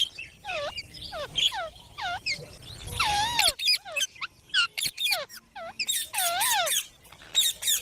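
Rose-ringed (Indian ringneck) parakeets calling: many short squawks in quick succession, each rising and then falling in pitch, some overlapping.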